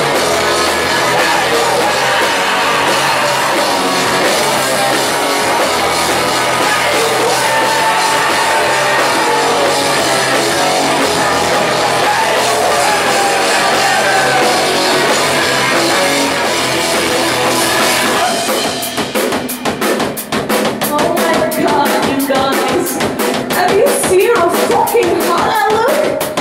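Live rock band playing loud: electric guitar, bass guitar and drum kit in a dense wall of sound. About eighteen seconds in it drops to a sparser passage of quick, even sharp hits, with a voice singing over it near the end.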